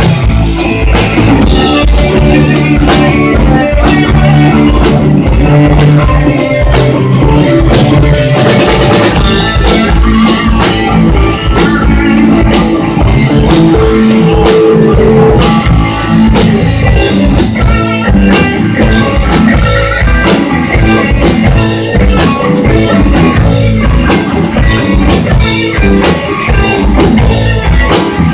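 A rock band playing loudly, with guitar and a drum kit keeping a steady beat.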